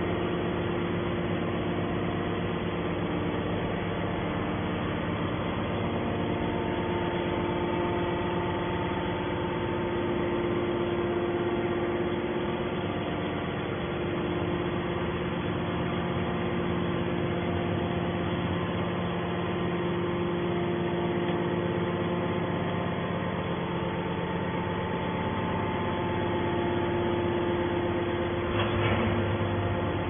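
TCM hydraulic metal scrap baler's power unit running steadily: the electric motor and hydraulic pump give an even hum with a held whine over it.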